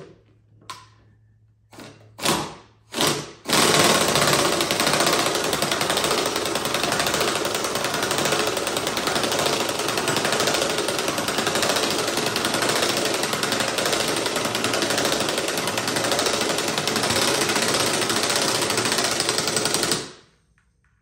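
Air impact wrench hammering as it drives the screw of a BeadBuster XB-450 bead breaker down onto an ATV tire's bead. A few short blips first, then a steady run of about sixteen seconds that stops abruptly.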